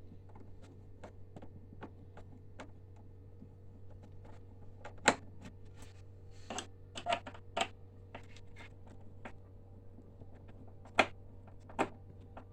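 Scattered clicks and sharp knocks of plastic casing parts and tools as an Epson 1400-based printer is taken apart, with a handful of louder clacks in the middle and near the end.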